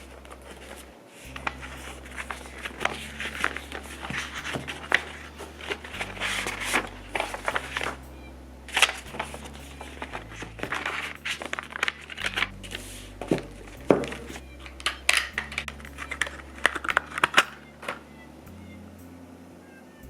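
Irregular crinkling and rustling handling sounds with sharp snips and clicks, over soft background music with a slow low bass line.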